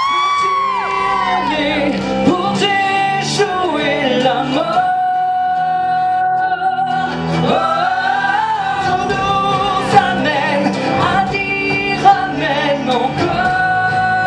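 Male lead singer singing a pop-rock musical number into a microphone over backing music through stage speakers, holding several long notes.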